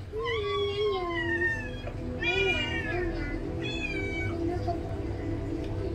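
A cat meowing three times, the first call long and falling in pitch, the next two shorter, over soft background music.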